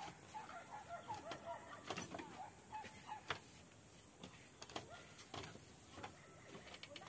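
Chickens clucking faintly, mostly in the first couple of seconds, with a few light knocks scattered through.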